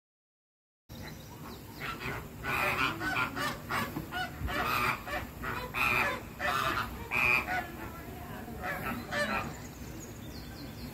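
A flock of American flamingos honking, many short calls overlapping. The calls start about a second in, are busiest in the middle and thin out near the end.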